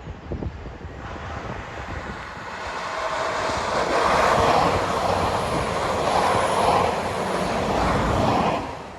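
A train passing the lineside, its engine and running noise building over the first few seconds, loud through the middle, then dropping away shortly before the end.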